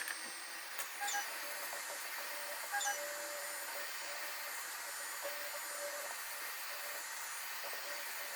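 Steady hiss of a heat gun blowing hot air, softening the adhesive to free the phone's glued-on screen.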